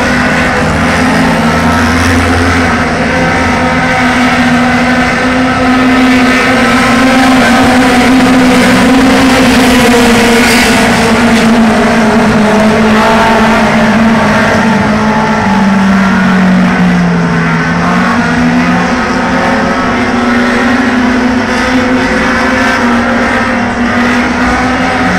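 Engines of several dirt-track race cars running at speed around the oval: a steady drone whose pitch rises and falls as the cars lap.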